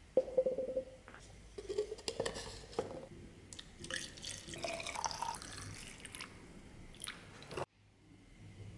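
Water poured from a plastic bottle into a cut-off plastic bottle holding a knife blade, splashing, its pitch rising briefly as it fills. A few knocks and clatters of plastic being handled come first.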